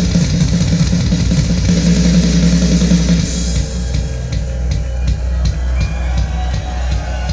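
Rock music with a drum kit played through a DIY Dayton Audio 2x50 W Bluetooth speaker kit in a solid-wood fourth-order bandpass box, picked up by an old tablet's microphone. Heavy, steady bass gives way about three and a half seconds in to a sparser passage with a drum hit a little more than twice a second.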